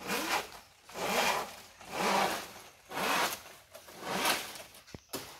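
Repeated rasping sawing strokes on wood, about one stroke a second and each about half a second long, with a couple of sharp knocks near the end.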